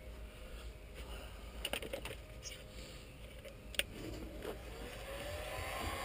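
A few sharp clicks and knocks of a tool being handled. About four seconds in, an electric heat gun switches on: its fan whine rises as it spins up into a steady blowing noise, heating shrink tubing over spliced wires.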